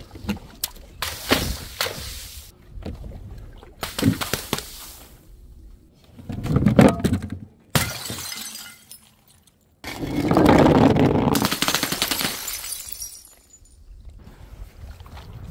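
Glass bottles and jars shattering in a series of separate crashes and clinks, with a longer, louder stretch of breaking about ten seconds in.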